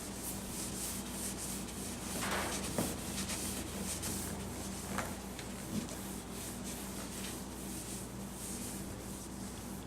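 Paper towel rubbed back and forth over a plastic headlight lens in quick repeated strokes, working in restoring compound that lifts the yellowed oxidation off the lens.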